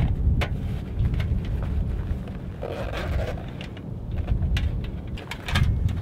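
Wind buffeting the microphone as a gusty low rumble, with scattered light clicks and a brief rustle from gear being handled on rock.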